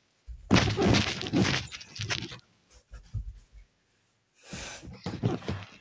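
A boy's rough, growling lion-roar imitation for about two seconds, followed by a few small knocks and rustling.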